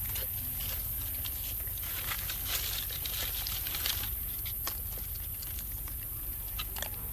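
Rustling and crinkling with scattered light taps over a steady low hum.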